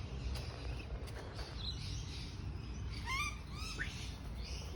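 Birds calling: a quick run of short rising chirps about three seconds in, with fainter calls before them.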